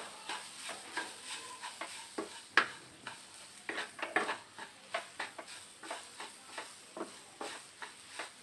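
A wooden spatula scraping and tapping against a metal kadai while stirring grated coconut cooking with milk and sugar, in irregular strokes about two or three a second. The mixture is being stirred continuously to cook it down into a mawa-like mass.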